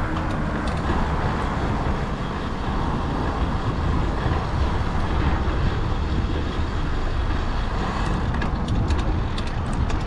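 Steady road traffic noise heard from a moving bicycle, with a deep rumble and a few light clicks in the last couple of seconds.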